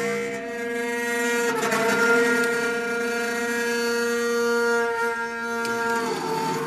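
A loud, sustained horn-like drone made of several steady tones held at one pitch, shifting briefly about a second and a half in and again near the end. This is the unexplained 'strange sound in the sky' of the viral apocalypse-trumpet kind.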